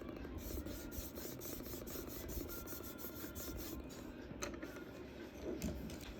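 Charcoal rubbed on drawing paper in quick back-and-forth scratchy strokes, about five a second, then slower scattered strokes in the last couple of seconds.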